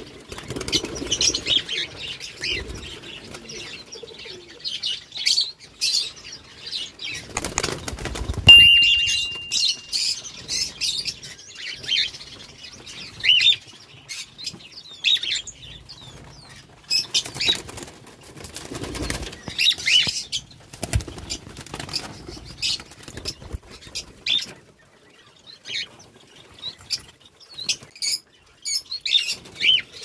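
A flock of cockatiels flapping about in a wire-mesh cage, with many short chirping calls throughout. There are two louder flurries of wingbeats, about seven to eight seconds in and again around nineteen to twenty seconds.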